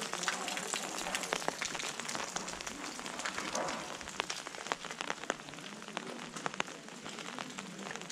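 Gentle rain falling on an umbrella overhead: a steady hiss scattered with many sharp little taps as drops strike the fabric.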